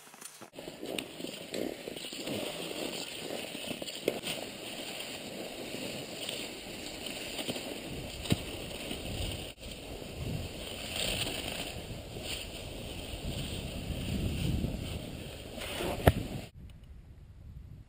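Cross-country skis swishing along groomed classic tracks with the knock of pole plants, heard from a camera carried by the skier; a sharp knock about 16 seconds in, after which the sound turns quieter.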